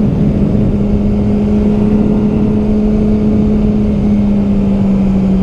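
Yamaha R6 sport bike's inline-four engine pulling at steady revs while riding. Its note drops a step right at the start, then holds almost level, easing slightly lower, over a steady rush of wind noise.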